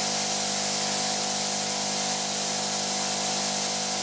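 A plasma cutter's built-in twin-piston air compressor running steadily in air-only mode, described as quite quiet: a steady hum under an even, strong hiss of compressed air blowing out through the torch.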